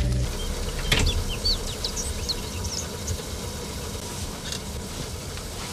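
Car engine running with a low, steady rumble, a single thump about a second in, and birds chirping briefly over it.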